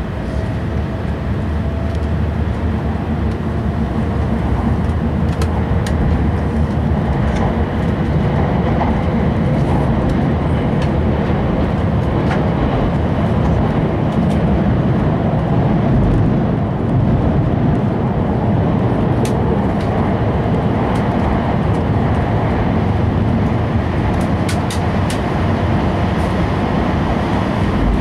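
Cabin running noise of an E5 series Shinkansen: a steady low rumble of the wheels and running gear that grows louder over the first few seconds as the train picks up speed out of a station, then holds steady, with a few faint clicks.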